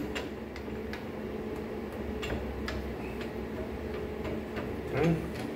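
Light metal taps and clicks at a lathe chuck, about two a second and a little irregular, as a bar is knocked through the chuck jaws into the spindle bore. A steady low hum runs under them.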